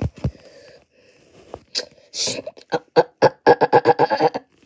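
Two low thumps at the start, then a person's voice making a quick run of short pitched vocal sound effects, about eight a second, in the last couple of seconds.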